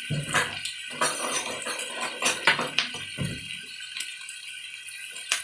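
Scattered clinks and knocks of kitchen utensils against a pan, over a steady hiss.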